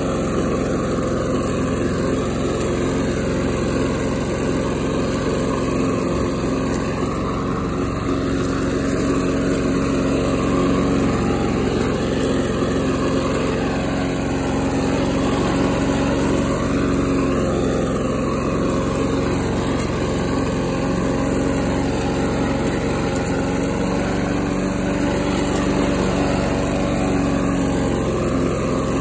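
Lawn-Boy 8237's two-stroke D-Series engine running steadily at a constant pitch while the self-propelled mower cuts and picks up grass and leaves into its rear bag.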